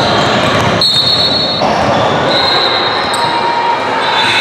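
Basketball game noise in a gym: sneakers squeaking on the hardwood court twice, about a second in and again past two seconds, over a steady din of the hall, with a basketball bouncing.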